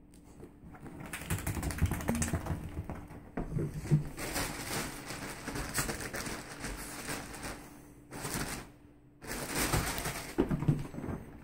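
A small dog's paws scrabbling and scratching rapidly on a fabric bed cover as it digs and rubs itself dry after a bath, a dense run of irregular scratches and thumps with a pause of about a second some eight seconds in before it starts again.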